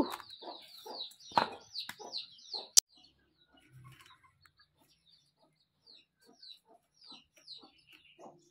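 Chickens peeping and clucking: a quick run of short high peeps, then fainter scattered peeps with a few low clucks. A knock and a sharp click come just before the sound drops off, near three seconds in.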